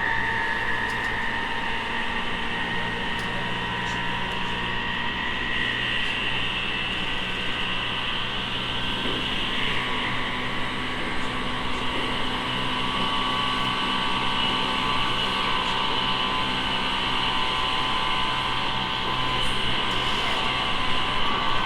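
E217 series electric train heard from inside a car while running: a steady whine of several high tones from the traction motors and inverter over a low rumble.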